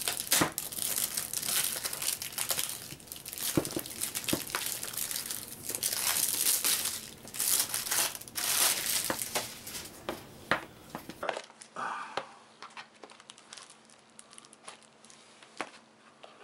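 Plastic shrink-wrap crinkling and tearing as it is pulled off a sealed trading card starter deck box, for about eleven seconds; then a few light taps and clicks as the cardboard box is handled and opened.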